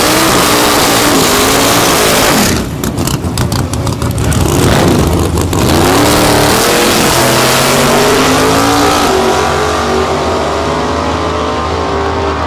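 Naturally aspirated drag-race cars, a Fox-body Mustang among them, revving hard at the starting line with a choppy, stuttering stretch, then launching and running down the strip, engine pitch climbing through the gears.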